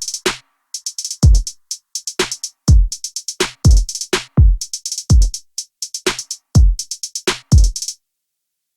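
Background music: a drum-machine beat of deep kicks that drop in pitch under fast hi-hat ticks. It stops abruptly near the end.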